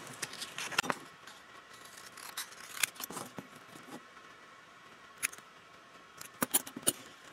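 Scissors cutting out a small cardboard tag: a series of short, irregular snips and clicks with quiet gaps between them.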